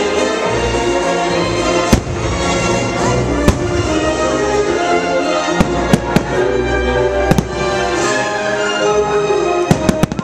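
Fireworks bursting over orchestral show music: sharp bangs about two, three and a half, six and seven seconds in, with a quick cluster of three near the end, while the music plays on.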